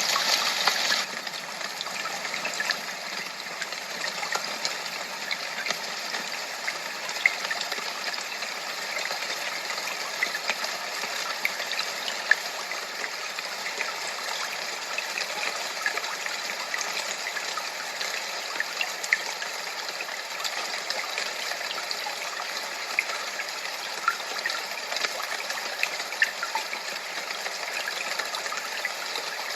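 Steady masking noise like running water: an even rushing hiss from which scattered faint ticks and splashes stand out, a little louder for the first second.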